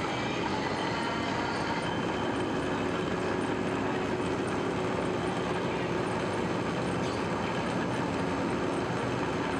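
Clay pug mill (extruder) running steadily as it pushes out a column of clay: a constant machine noise with a faint, regular high ticking.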